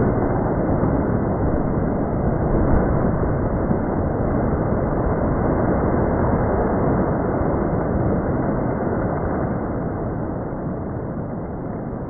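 A steady, dense rumbling noise with no clear pitch, slowly fading over the last few seconds.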